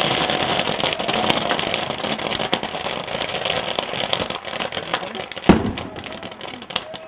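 Large bonfire burning on a boat: a dense, steady crackle of many small sharp pops that slowly thins out, with one louder bang about five and a half seconds in.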